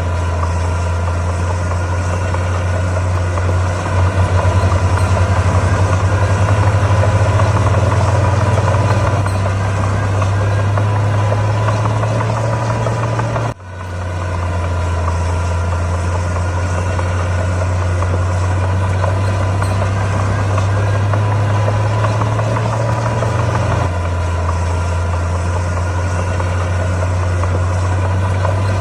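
Heavy diesel engine running steadily with a low drone, briefly cut off about 13 seconds in and then resuming.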